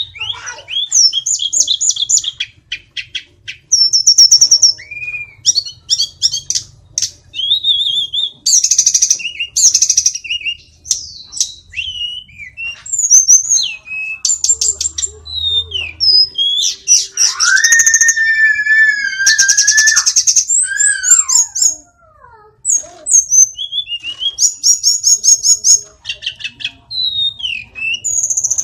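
Hill blue flycatcher (sulingan gunung) singing a long, varied song: high trills and rapid chattering runs mixed with clear whistled notes, with a lower held whistle and falling glides around the middle.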